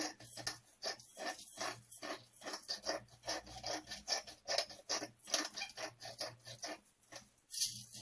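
Salt and pepper being sprinkled into a baking dish: a rapid, irregular patter of small ticks, with a brief pause near the end.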